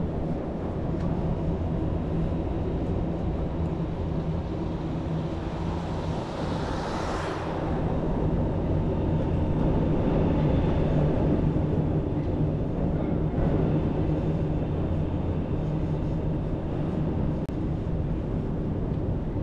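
Steady low rumble and hum of city traffic, with one louder passing swell about seven seconds in.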